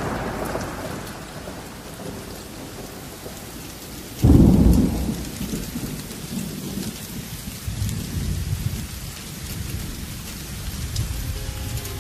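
Thunderstorm: steady rain with a loud clap of thunder about four seconds in, followed by low rumbling.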